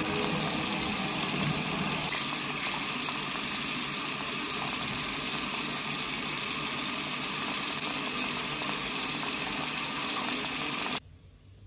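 Bathroom sink tap running steadily, stopping abruptly near the end.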